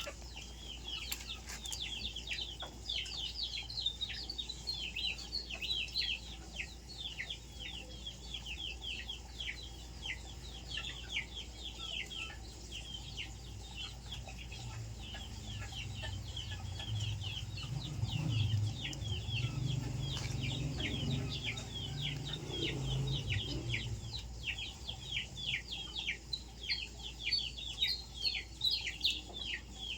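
Birds chirping steadily: a constant run of short, high chirps that slide downward, several a second. A low hum joins in for several seconds after the middle.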